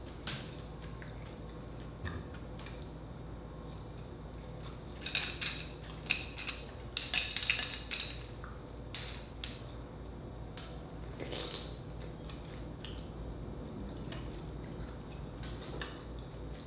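Clam shells clicking against each other and the glass bowl as clams are picked out by hand: a quick run of sharp clicks about five to eight seconds in, with a few softer clicks later.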